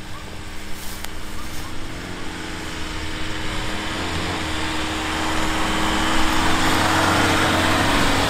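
Dacia Duster climbing a grassy slope in first gear with four-wheel drive engaged, its engine running steadily under load and getting louder as it approaches. A hiss of tyres brushing through tall grass builds over the last few seconds as it passes close.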